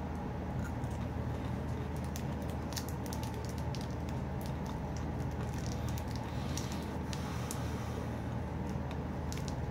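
A person chewing gum with the mouth close to the microphone: scattered faint wet clicks and squishes, over a steady low hum.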